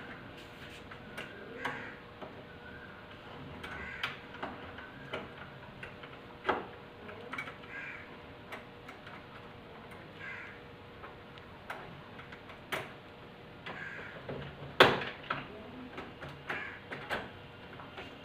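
Phillips screwdriver working the screws out of a doorknob latch faceplate: scattered light metal clicks and taps, with several short squeaky scrapes and one louder click about 15 seconds in.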